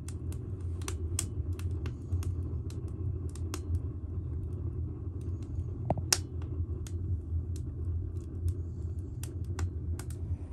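Motor vehicle running with a steady low rumble, overlaid by frequent short clicks and knocks like rattling.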